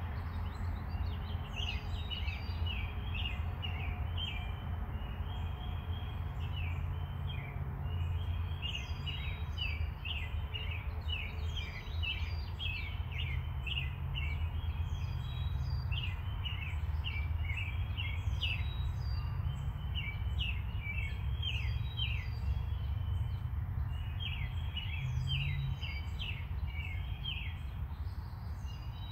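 Small birds chirping continuously, many quick chirps overlapping, over a steady low hum.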